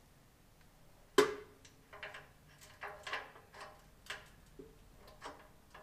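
Hand handling of metal parts on a WEN metal-cutting bandsaw: one sharp metallic clack about a second in, then a run of lighter, irregular clicks and clinks, some with a brief ring.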